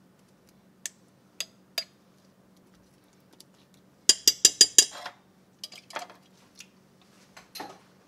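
Metal spoon clinking and knocking against a slow cooker's crock while spreading condensed soup: a few single clicks, then a quick run of about six ringing clinks about four seconds in, and a few softer knocks near the end.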